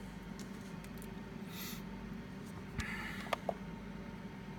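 A brief rustle and then two small sharp clicks about three seconds in, from a thumb pressing the scroll button of a Peak Atlas DCA55 semiconductor analyser, over a steady low hum.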